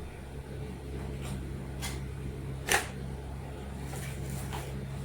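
A steady low hum under a few light clicks and taps from toy packaging being handled. The loudest click comes a little under three seconds in.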